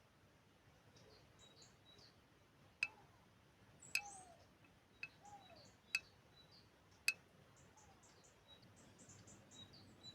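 Faint high bird chirps in the countryside, with five sharp clicks standing out, spaced about a second apart in the middle of the stretch.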